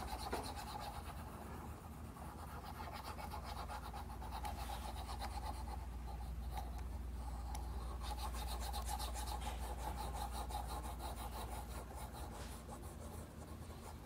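Stylus nib rubbing and scratching across the screen of a Huion Kamvas GT-191 pen display in many quick coloring strokes, over a steady low hum.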